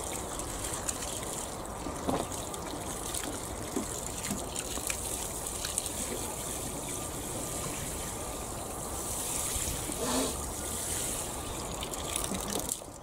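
Water poured from a plastic watering can splashing onto bare soil to water in a freshly sown seed bed. A steady trickling splash that stops just before the end.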